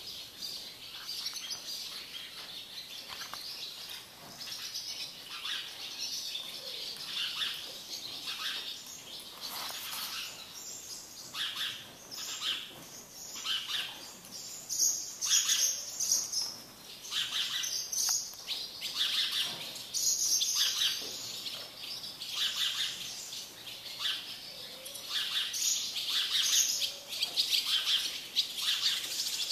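Small birds chirping, many short calls following one another without pause, louder from about halfway through.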